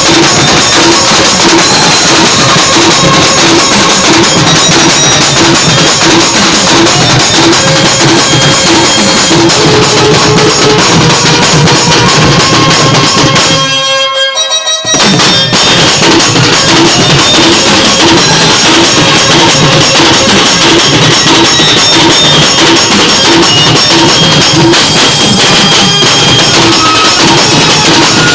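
Loud band-party music driven by drums and percussion, with a steady repeating beat. It cuts out briefly about halfway through, then starts again.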